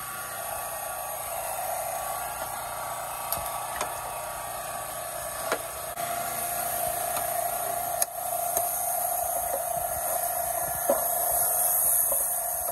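A steady machine hum, with a few light clicks and knocks from plastic golf-cart trim and parts being handled and wiped.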